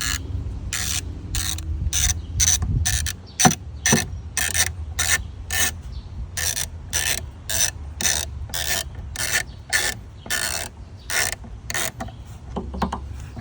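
Hand ratchet clicking in quick back-and-forth strokes, about three a second, as it drives in the screws on the air filter housing. There are two sharper knocks about three and a half seconds in, and the ratcheting stops about twelve seconds in.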